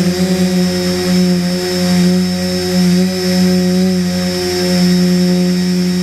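Electric motors and propellers of a hovering multirotor drone, a steady hum with a high whine over it, heard through the drone's onboard camera. The pitch wavers slightly about halfway through.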